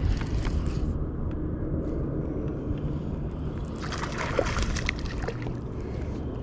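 Water splashing and sloshing as a small hooked largemouth bass is reeled in beside the kayak, the splashing loudest about four to five seconds in, over a steady low rumble.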